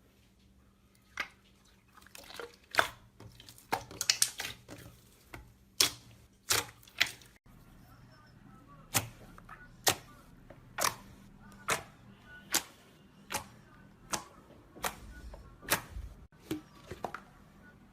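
Slime being squeezed and pressed, giving sharp clicking pops as trapped air bursts. At first the pops come irregularly and in clusters; in the second half they settle into an even beat of roughly one pop a second.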